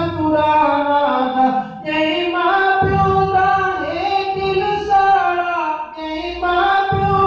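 A man's voice chanting a Saraiki nazm in a slow melody, drawing out long held notes that glide between pitches, phrase after phrase.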